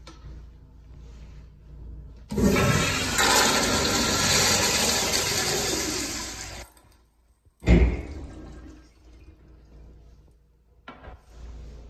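Kohler Kingston toilet flushed by its manual chrome flushometer valve. A loud rush of water lasts about four seconds and cuts off suddenly. About a second later comes a single sharp thump.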